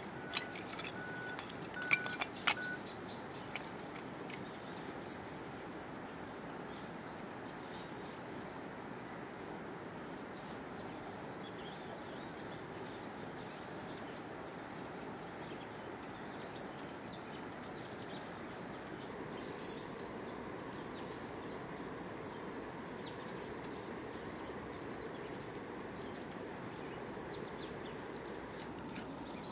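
Steady outdoor ambience with faint bird chirps. A few sharp knocks land in the first three seconds and one more about halfway through.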